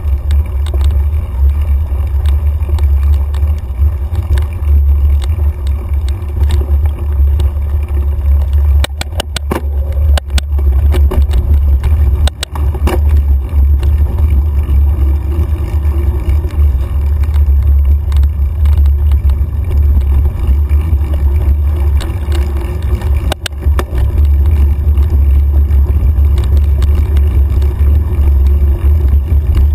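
Heavy low rumble of wind and trail vibration on a bike-mounted camera as a mountain bike rides over dirt singletrack. A cluster of sharp clicks and knocks comes about a third of the way in, and one more sharp knock comes about three quarters through.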